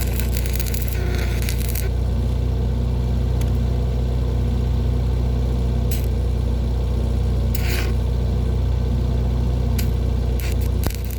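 An engine running steadily at idle, a low even drone, with short scraping hisses in the first two seconds, about seven and a half seconds in, and again near the end.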